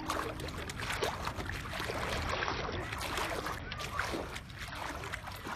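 Water sloshing and splashing close to the microphone as a hand moves in shallow water, with many small crackling splashes, fading toward the end.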